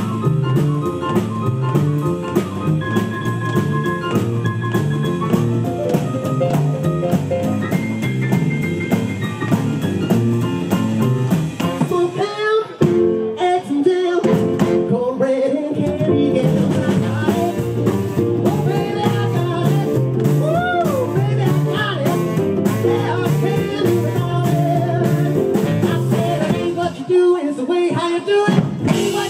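Live rock and roll band playing an up-tempo number, with electric guitar and drums over a steady driving beat. The beat briefly drops out a couple of times about halfway through.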